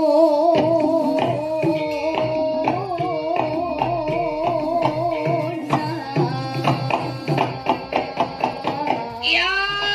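Girl sinden singing a Javanese song with a wide, wavering vibrato over gamelan accompaniment. From about six seconds in, quick hand-drum strokes take over, and near the end a new sung phrase comes in with a sharp upward swoop.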